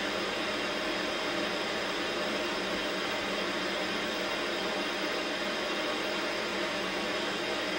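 Static hiss from an old tube television tuned to no signal: a steady, even hiss with no change.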